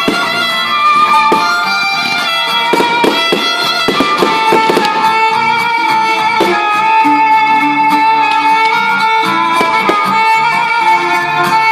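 Loud music with a held, sustained melody, with firework bangs and crackles breaking through it, thickest in the first few seconds.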